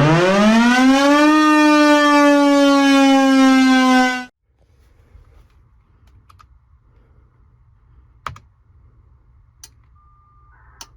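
Federal Signal Thunderbolt warning siren winding up, its pitch rising over about a second and a half and then holding a steady tone, cut off abruptly about four seconds in. After that come a few single clicks, and near the end a short steady beep followed by a brief burst of data tones.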